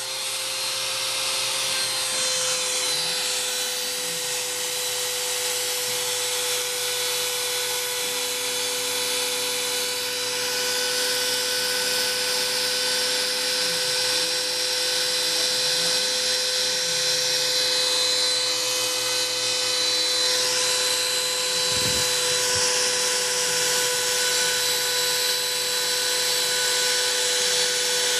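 Homemade CNC router cutting carbon fiber: the spindle runs with a steady high whine and hiss. Lower tones sweep up and down twice as the machine's axes move, and there is a brief low thump about three-quarters of the way through.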